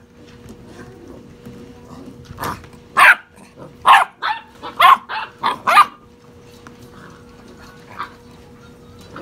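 A 6½-week-old basset hound puppy giving a quick run of short, high yapping barks, about seven in three seconds, starting two and a half seconds in, with one faint yap near the end.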